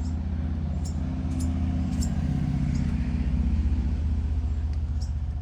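Steady low rumble with a faint hum, and a few faint ticks.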